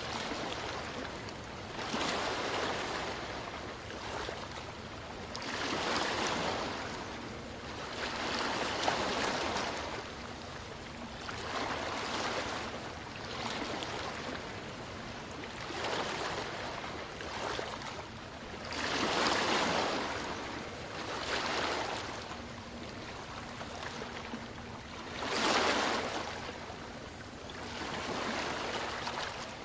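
Small waves washing onto a sandy beach, a hiss of surf that swells and falls away every three to four seconds, with two stronger waves in the second half.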